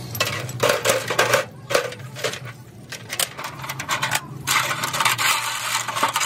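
Steel differential gears and the spider cross clinking and scraping against each other and against a metal washing pan as they are scrubbed with rags in soapy liquid: sharp clinks in the first half, then steady scrubbing and sloshing from about two-thirds of the way in.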